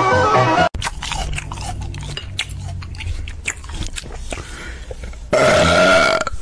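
Banjo-like plucked music stops suddenly under a second in. Then comes a run of dry crinkling and clicking from a stiff paper dragon hand puppet being handled and moved. Near the end there is a louder sound with a held tone lasting about a second.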